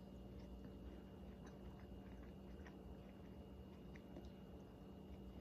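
Near silence: a faint steady hum with a few scattered faint small clicks.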